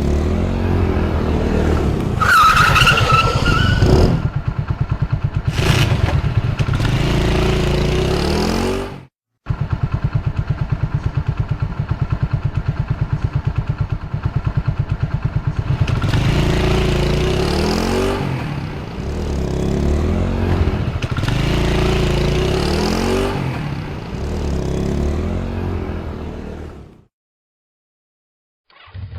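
Honda motorcycle engine idling with an even putter and revved up and down several times, in two separate takes split by a brief silence about nine seconds in. A short high squeal rises over the revving near the start.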